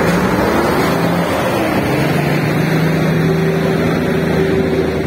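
Heavy diesel engine of a tanker semi-truck running steadily, a continuous low drone with a higher steady hum over it.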